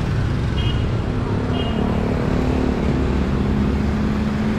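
Steady street traffic: a constant low rumble of passing cars and motorbikes, with an engine hum that comes in about a second in. Two short high chirps sound near the start.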